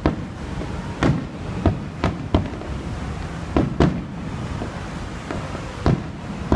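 Aerial fireworks bursting: a string of about eight sharp bangs at uneven intervals, some in quick pairs, each with a short echoing tail.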